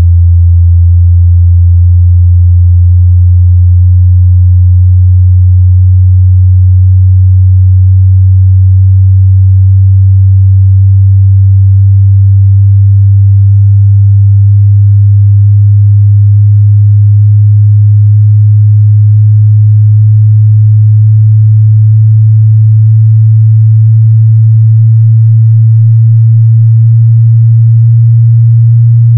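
Bass test sweep from a car-audio judging disc: one loud, deep tone gliding slowly and steadily upward in pitch, used to check a car audio system's bass reproduction.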